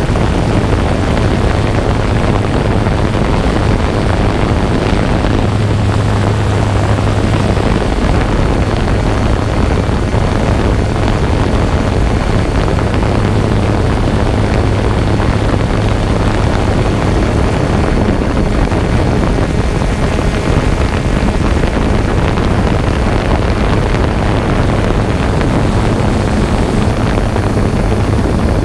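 Quadcopter drone's propellers and motors running steadily in flight, a constant hum over a rushing hiss.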